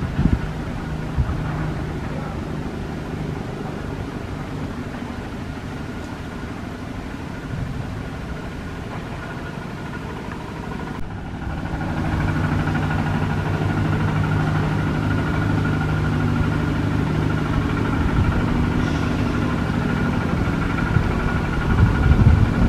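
A steady engine hum, which becomes louder after a sudden break about halfway through. A short louder sound comes near the end.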